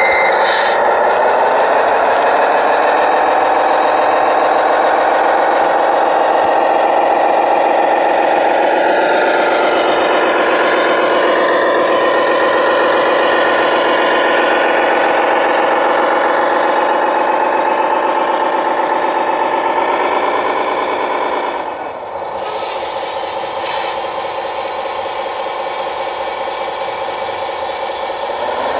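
Engine sound of a radio-controlled model truck, running steadily under throttle. About three-quarters of the way through it drops in pitch to a lower, quieter idle, then picks up again at the very end.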